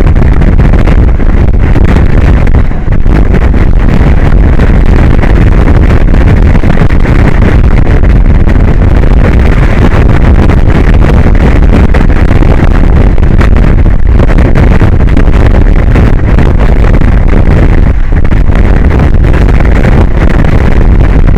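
Wind buffeting the microphone: a loud, steady rumble with no pitch, heaviest in the low end.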